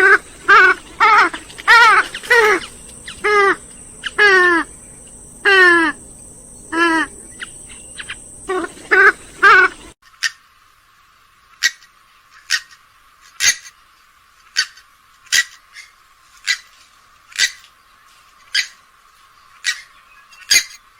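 Swamphen calling: a series of loud, nasal honking calls that waver and fall in pitch, one every half second to a second. About halfway through the sound changes abruptly to short, sharp clicking notes about once a second, with the low end cut off.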